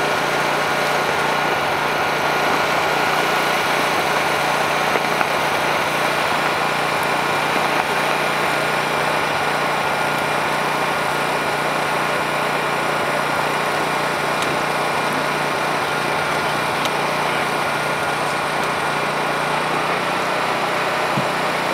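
A small engine running steadily at a constant speed, with a steady hum and whine; it starts abruptly.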